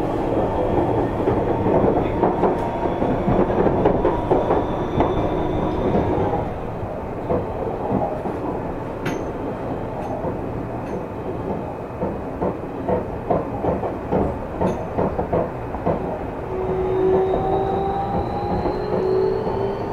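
Seibu 30000 series electric train heard from inside the passenger car. The traction inverter's whine is steady for the first few seconds and then stops while the train coasts with wheels clicking over rail joints. Near the end the whine returns, rising in pitch as power is applied again.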